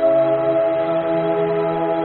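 Background music: a slow ambient track of held, organ-like chords, its low note changing about halfway through.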